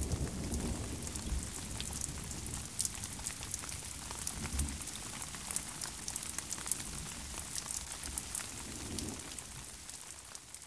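Rain falling, with many small crackling ticks over a low rumble; it fades away near the end.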